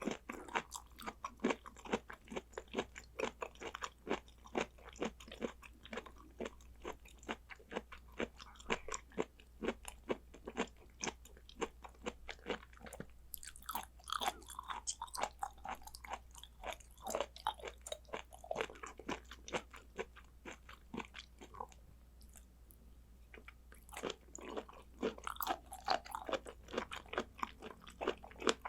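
A person chewing raw blood clam sashimi: rapid, crunchy, wet chewing clicks, several a second, easing into a quieter lull a little past the middle before picking up again.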